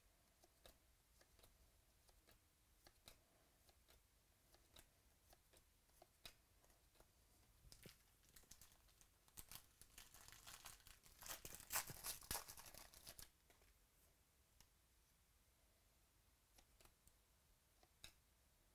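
Trading-card pack wrapper being torn open, a crinkly tearing from about ten to thirteen seconds in. Faint clicks of cards being flicked through a stack come before and after it.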